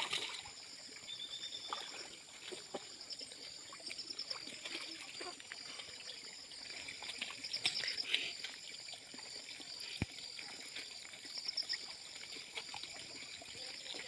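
Water splashing and trickling as a person wades waist-deep through a muddy pond, water pouring off a hand net he lifts out, with scattered small splashes and knocks and one sharp click about ten seconds in.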